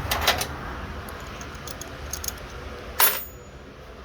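Metal hand tools clinking and rattling as someone rummages through them looking for a tool. There is a rattle of clinks at the start, a few light clinks in the middle, and a single sharp clack about three seconds in.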